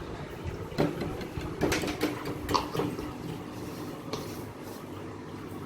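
Kitchen utensils clinking: a handful of sharp knocks with a short ring, bunched in the first half and one more a little after four seconds, over a low steady hum.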